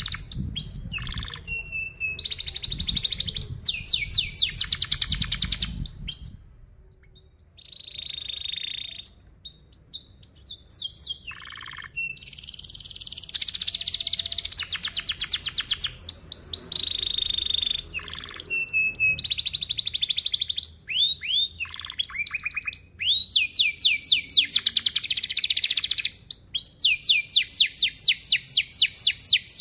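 Yellow domestic canary singing a long song of fast, tightly repeated rolling trills and chirps, high-pitched, breaking off briefly about seven seconds in before carrying on.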